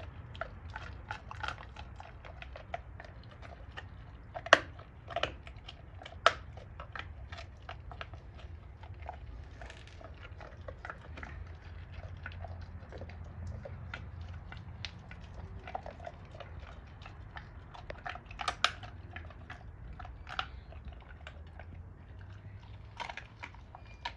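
A Doberman chewing and crunching a raw pork bone, with a steady run of small wet chewing clicks. Several sharper cracks of bone break through, the loudest about four and a half seconds in and another near the middle.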